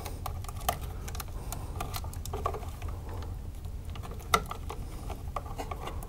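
Small clicks and rattles of electrical wires and a wall receptacle being handled as the wires are connected at a plastic electrical box, with a sharper click about four seconds in. A low steady hum runs underneath.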